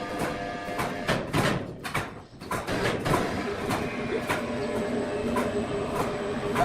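Sawmill machinery running with a steady hum and a scatter of clicks and knocks; the sound drops away briefly about two seconds in.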